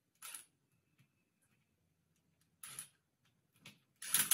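Cordless power driver run in a few short bursts on a bolt at the bottom of the rear differential, closing it up after the gear-oil drain. The last burst, near the end, is the loudest.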